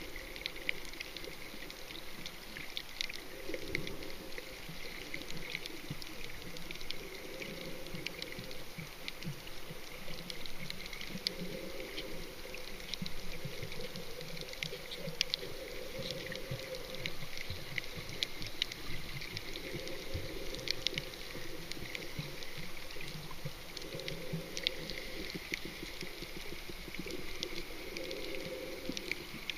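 Water heard underwater: a steady fine crackling with swells of bubbling that come and go every few seconds.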